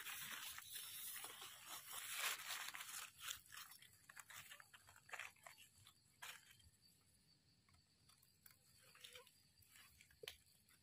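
Rustling of dry leaf litter and a blade scraping and digging into sandy soil as a wild mushroom is worked loose and pulled out: a dense rustle for the first few seconds, then scattered small crunches and clicks.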